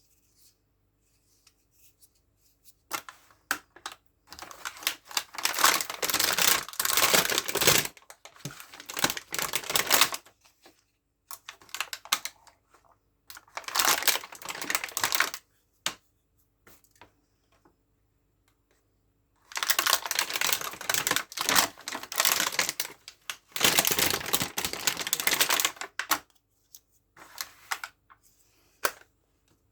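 Small plastic toy pieces and packaging being handled and unpacked, making dense rapid clicking and rustling. It comes in three bursts of several seconds each, with quiet gaps between.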